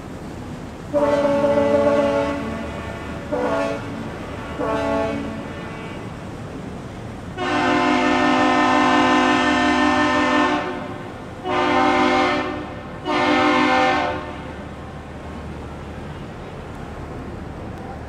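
Captain's salute exchanged on air horns: the tug-barge Clyde S. VanEnkevort / Erie Trader sounds one long and two short blasts, and the Aerial Lift Bridge's horn answers with one long and two short. The first set starts about a second in, the second about seven seconds in with a longer, louder first blast, over the steady low hum of the tug's twin diesels.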